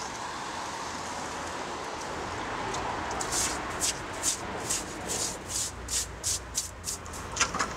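A stiff-bristled hand brush scrubbing a rough concrete sculpture surface in quick, separate strokes, a little under three a second, starting about three seconds in over a steady background hiss. A couple of sharp clicks come near the end.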